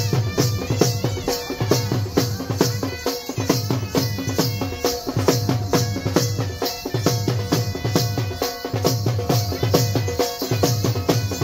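Dhol drumming with a fast, steady beat for dhamal dancing, with rattling percussion and a held pitched tone over it.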